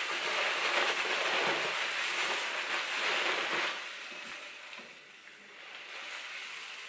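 Malt grain (rye, caramel and pilsner malts) pouring from a sack into a pot of hot strike water at mash-in, a steady hiss. About three and a half seconds in the hiss fades, leaving quieter stirring of the mash with a wooden spoon.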